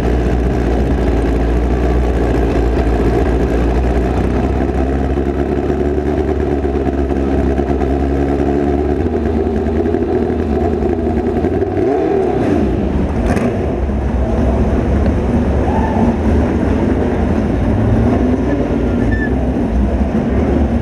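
Midget race car's engine heard from onboard, running at low revs as the car rolls slowly off the track after its run. The pitch settles lower about nine seconds in, and a single sharp click sounds a few seconds later.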